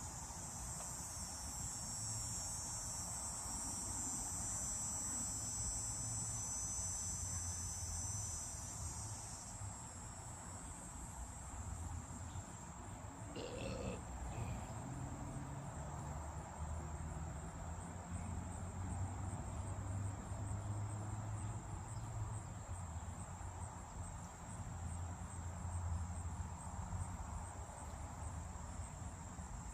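Insects making a steady, high-pitched trill, fuller for about the first ten seconds and thinner after that, over a low rumble, with one short call about halfway through.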